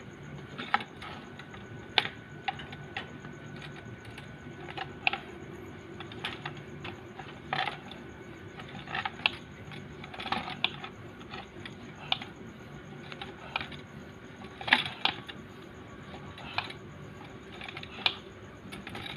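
Copper refrigerant tubing being wound by hand around a PVC pipe former, giving irregular sharp clicks and taps at uneven intervals.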